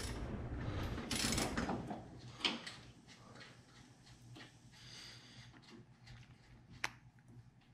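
Ratchet wrench at the front of a V8 engine, worked by hand while setting the valves after a cam swap: sparse, faint ratchet clicks and metal ticks, with one sharp click near the end. A steady noise fades away over the first two seconds.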